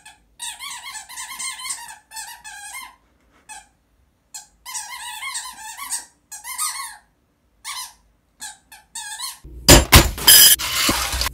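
A squeaky toy squeaked over and over in short wavering bursts as a small dog chews it, with silent gaps between the bursts. Near the end, loud rustling and clattering of handling noise takes over.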